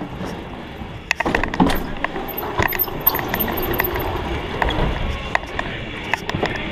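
Mountain bike ridden fast over a wooden track: tyres rolling and the bike rattling and clattering. It grows louder about a second in, with a run of sharp knocks and clinks.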